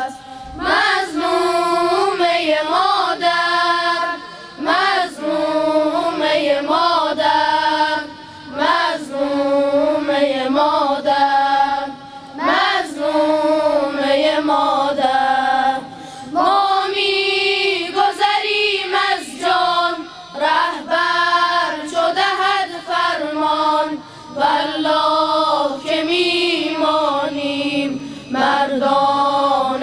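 Boys' choir singing a devotional praise song in unison, in sung phrases of a few seconds with short breaths between them.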